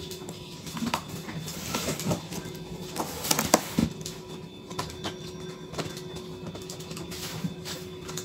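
A large cardboard retail box being handled and shifted on a table: scattered scrapes, rustles and knocks, the loudest cluster a little over three seconds in.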